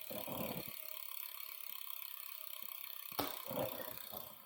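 Bicycle rear freehub ticking rapidly and evenly as the wheel spins freely on the workstand, then a sharp click about three seconds in followed by a little clatter.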